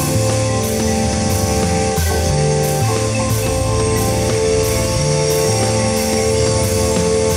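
Background music with a drum kit keeping a steady beat over held notes and a bass line that changes note every second or so.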